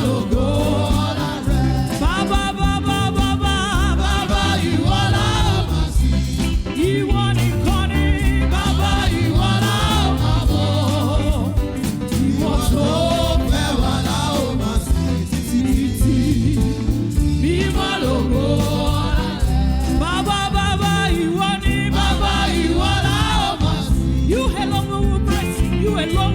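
Gospel music with a steady heavy beat and bass, with singers' voices rising and falling above it, some of them sounding like a choir.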